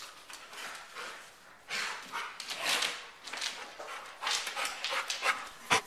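Dogs playing rough together, giving short noisy huffs and barks in irregular bursts, with a sharp knock near the end.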